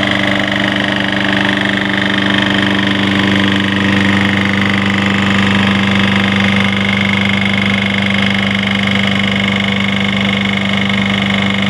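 Snapper S22675 push mower's 6.75 Briggs & Stratton engine running steadily, with the knocking noise that the owner takes as the sign of a terminally worn engine, run low on oil with its cylinder walls probably burned.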